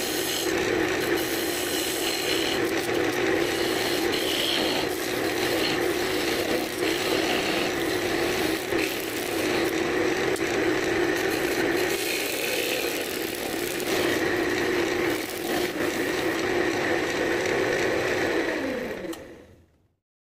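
Wood lathe running steadily with a constant hum, a thin parting tool scraping at the spinning cherry-wood tealight holder's tenon at first. Near the end the hum falls in pitch as the lathe spins down, and the sound fades out.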